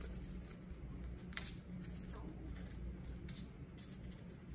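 Paper numeral cards being picked up and stacked together by hand: a few faint light taps and rustles, the clearest about a second and a half in, over a low steady room hum.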